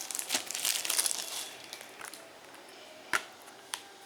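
Plastic shrink-wrap crinkling as it is pulled off a sealed Blu-ray case, loudest in the first second and a half, then two sharp clicks near the end.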